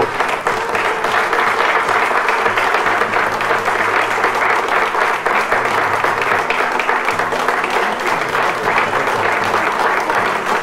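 A room full of people applauding steadily, with music playing underneath.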